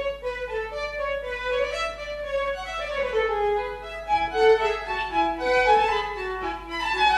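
A small live string ensemble playing, with a violin carrying a moving melody of held and stepping notes over the other bowed strings.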